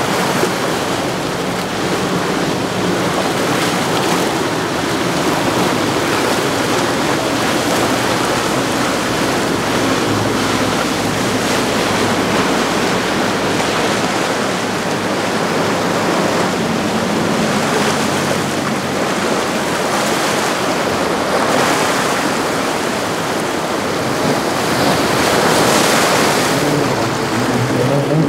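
Rough inlet water: waves and surf washing steadily, with wind buffeting the microphone and a low hum of boat engines underneath. The water noise swells up briefly near the end.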